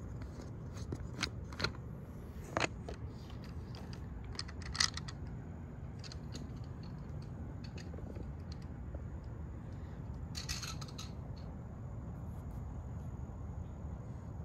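Drips of rainwater ticking sharply on a hard surface close by: a few in the first five seconds and a quick cluster about ten seconds in. Under them runs a steady low noise of rain and wind, with a faint steady high tone.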